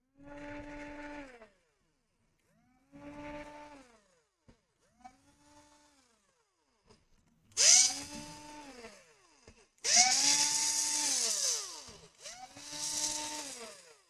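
Small electric screwdriver spinning in about six short runs, each winding up and winding down in pitch, backing out the battery screws inside an opened laptop.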